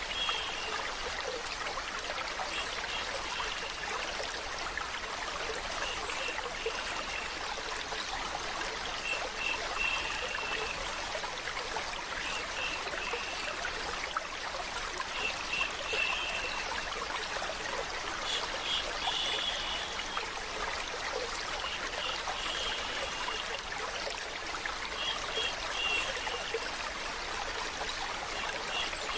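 Running water trickling steadily, blended with a continuous shushing hiss, with brief brighter trickling notes every few seconds.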